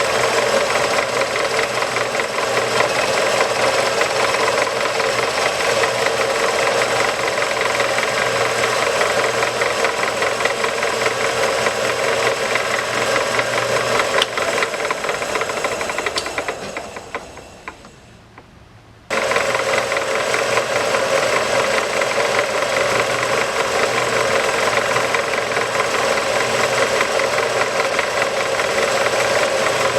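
MIG welder arc crackling steadily as it welds a broken barrel lug back onto a steel rifle barrel. The crackle dies away a little past the middle and starts again about two seconds later.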